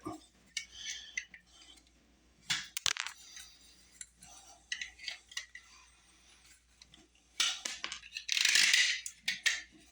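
Burrs being scraped off the freshly sawn end of a 1.5-inch plastic drain pipe: short, uneven scraping strokes and light clicks, with a longer scrape near the end.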